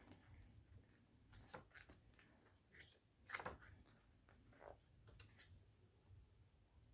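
Faint paper handling: glossy photo book pages being turned and brushed by hand, a few soft rustles a second or two apart, the loudest a little over three seconds in.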